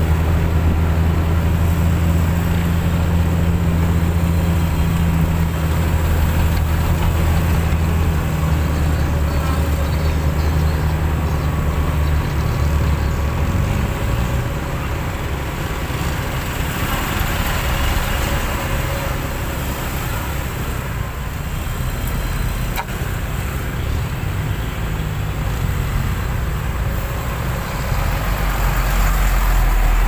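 Heavy truck's diesel engine pulling a lowboy trailer at low speed, with a steady low drone for the first dozen seconds that turns to a rougher rumble, amid road traffic. A brief hiss comes about halfway through.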